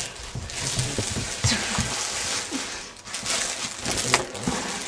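Plastic food bags rustling and crinkling as a possum rummages through them, with scattered small clicks and a sharp click about four seconds in.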